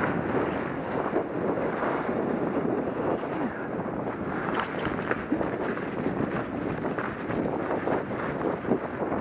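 Steady rushing and scraping of a dog sled gliding fast over a snowy trail, with wind buffeting the microphone.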